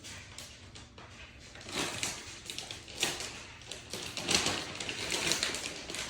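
Food packaging rustling and crinkling in irregular clusters as it is handled, likely to get a date out.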